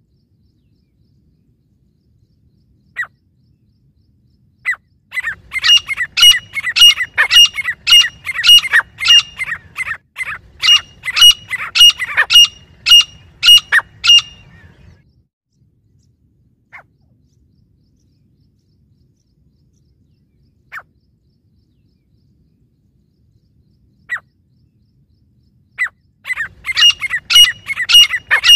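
Grey francolins calling: a long run of loud, sharp, repeated notes at about two a second, lasting nearly ten seconds. Single notes follow, several seconds apart, and a second run of calls starts near the end.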